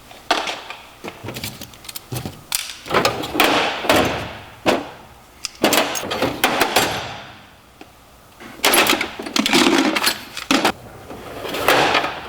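Metal hand tools, wrenches and sockets, clinking and clattering as they are handled and moved around in a metal toolbox drawer. The clanks come in bunches with short pauses, and there is a brief lull a little past the middle.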